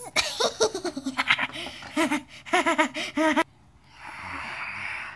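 A child's voice laughing in quick, choppy bursts for about three seconds, then a breathy hiss near the end.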